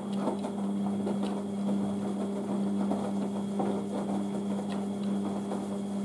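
Beko WM6143S washing machine running its wash cycle: a steady motor hum with small irregular clicks and rattles from the drum, the machine working again on its replacement control board.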